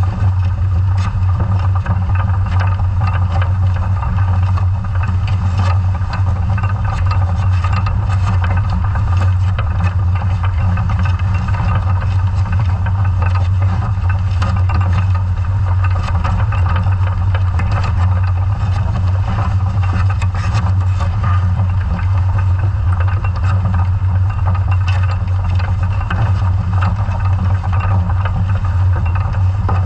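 Steady low machinery hum and rumble heard underwater through the camera housing on a scallop survey dredge under tow, typical of the towing vessel's engine and propeller noise carried through the water, with faint scattered ticks.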